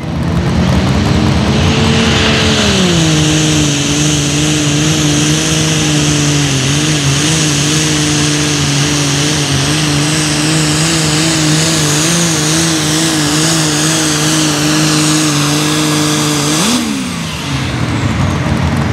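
Super stock pulling tractor's turbocharged engine under full throttle, hauling the sled down the track with a high whine above its note. About three seconds in the engine note sags lower as the load bites and then holds steady. Near the end it briefly rises and drops away as the pull ends.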